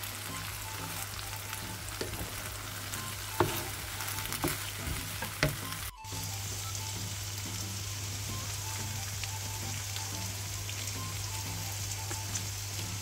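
Pasta and vegetables sizzling in a frying pan, with a steady low hum underneath. A few sharp knocks of a spatula against the pan come in the first half. The sound cuts out for a moment about halfway, then the sizzle resumes with a brighter hiss.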